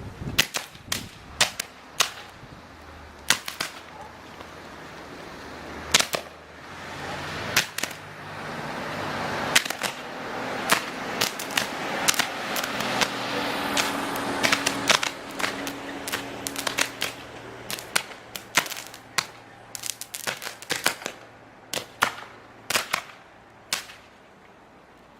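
Overhead power lines that have lost their insulation arcing as the wind knocks them together: dozens of sharp electrical cracks and snaps at irregular intervals, over a rushing haze that grows louder in the middle and a low steady hum.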